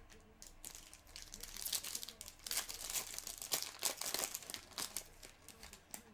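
Foil trading-card pack wrapper crinkling and being torn open, in a dense run of crackles that grows louder from about half a second in and dies down near the end.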